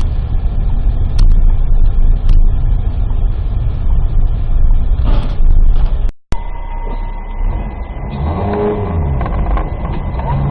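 Car engine and road noise recorded by a dash cam while driving, loud and rumbling. About six seconds in it cuts off briefly and a second clip of similar driving noise follows.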